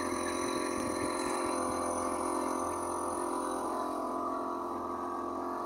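A small Chinese-made petrol boat engine running steadily at a constant speed with an even hum.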